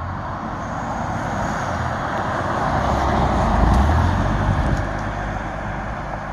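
Road vehicle driving past, tyre and engine noise swelling to a peak a few seconds in and then fading.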